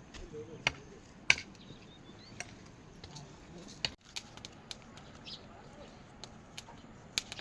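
Sharp, irregular knocks, several in the first half and one near the end, over a faint steady hiss.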